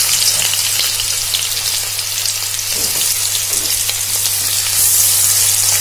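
Sliced onions sizzling as they fry in hot oil and ghee with whole spices in an aluminium pressure cooker, the sizzle growing louder near the end. A steady low hum runs underneath.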